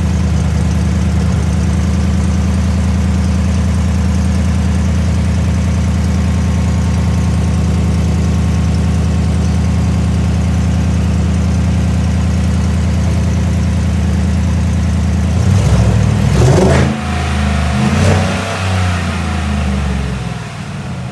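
Chevrolet Silverado V8 idling steadily through a freshly fitted Stainless Works cat-back exhaust, then revved twice near the end and let fall back toward idle.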